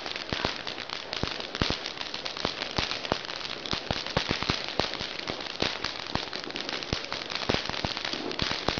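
Ground firework fountains spraying sparks with a steady hiss, over a fast, irregular crackle of sharp pops.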